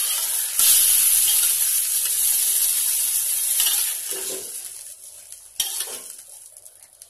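Hot oil sizzling in a pan as fried brinjal pieces are lifted out with a metal spatula; the sizzle is loudest for the first few seconds and dies down toward the end. A single sharp knock of the spatula comes late on.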